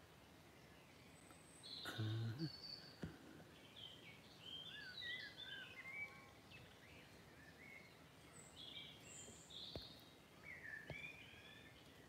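Several songbirds singing faintly, in short chirps and warbled phrases. About two seconds in there is a brief knock and rustle of the phone being handled, the loudest moment.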